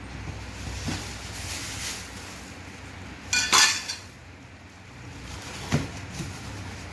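Metal parts of a gaming chair clinking and clattering as they are lifted out of the box. The loudest clatter comes about three and a half seconds in and rings briefly, with single knocks about a second in and near the end.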